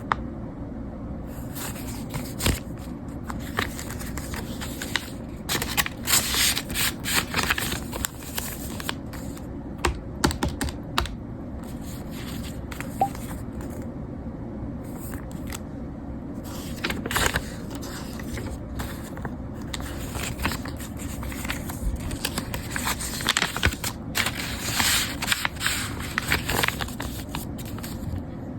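Typing on a keyboard: irregular runs of quick key clicks with short pauses between them, over a steady low hum.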